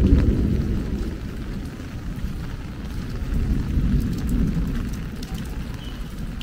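Heavy rain pouring down, heard mostly as a deep, uneven rumble that swells and eases, with a few faint taps of drops on top.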